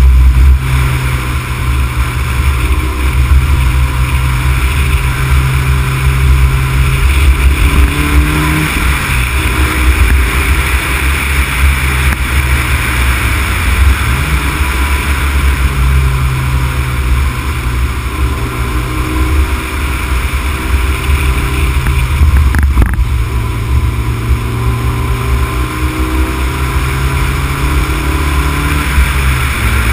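Honda Civic Type R EK9's 1.6-litre four-cylinder engine running on the move, its note rising and falling a few times, under heavy wind and road rumble on the microphone. A single short knock about two-thirds of the way in.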